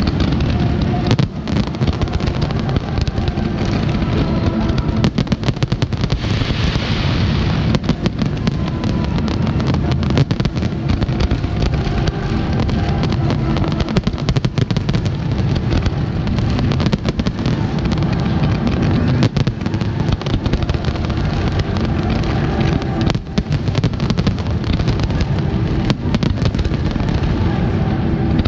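Aerial fireworks display: shells bursting in a dense, continuous barrage, many bangs a second over a constant rumble.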